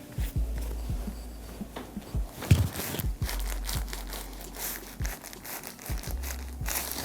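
Rustling and crinkling from bodies and hands moving on a chiropractic table during an adjustment session, with scattered small clicks and one loud sharp thump about two and a half seconds in.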